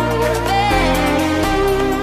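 Electronic background music: held synth notes over a bass line that steps to a new note every second or so.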